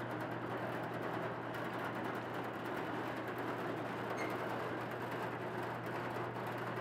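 1935 George White & Sons threshing machine running slowly, driven by an electric motor: a steady mechanical rattle of belts, pulleys and shaking straw walkers over a constant low motor hum.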